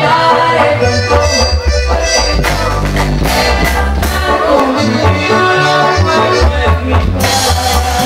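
Live norteño band playing a song, accordion over bass and a drum kit, with a woman singing into a microphone.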